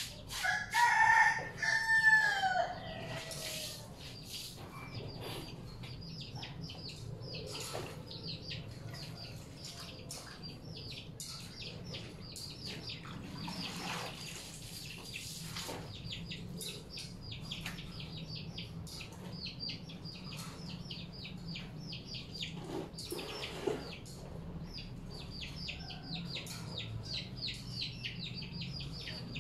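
A rooster crows once near the start, the loudest sound, its call ending in a falling tail. After it comes rapid high chirping, with soft splashes of water as clothes are washed and wrung out by hand in tubs.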